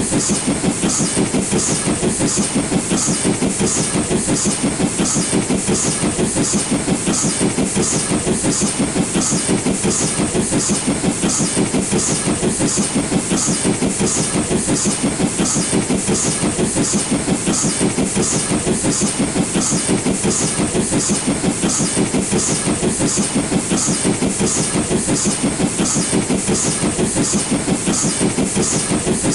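LNER B12 4-6-0 steam locomotive working up a gradient with a train, its exhaust chuffing in a steady, even rhythm.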